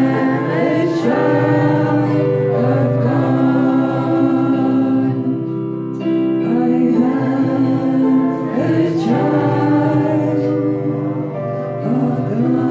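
Christian worship music: a group of voices singing long held notes.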